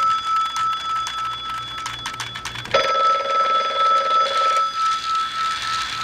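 Telephone ringing in repeated trilling rings: one ring ends just as it starts, and another begins a little under three seconds in and lasts about two seconds. Under it a battery toy train clicks and rattles along plastic track.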